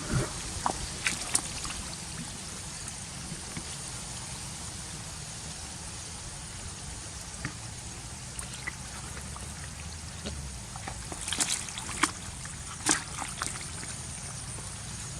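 Water trickling and splashing over steady background noise, with bursts of sharp splashes at the start and again about three-quarters of the way through.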